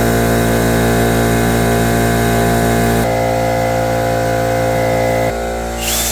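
Motor of duct-cleaning equipment running steadily with a dense, even hum. Its sound changes abruptly about three seconds in and again near the end, where a high whine comes in.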